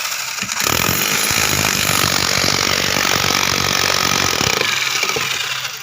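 A handheld power tool running under load, with a dense, gritty noise that eases off briefly just after the start and again at the end.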